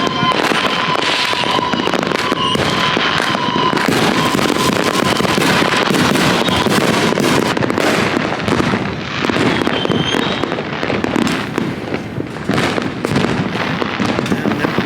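Many fireworks going off at once, dense overlapping crackling and bangs with no break. A steady high tone sounds over them for roughly the first three seconds.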